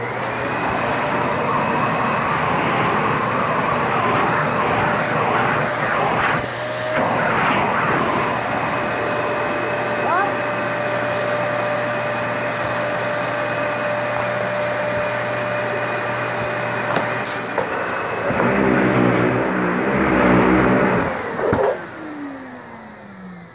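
Upright vacuum cleaner switched on and running steadily with a high motor whine. About eighteen seconds in it gets louder and rougher for a few seconds. It is then switched off, its motor whine falling as it spins down.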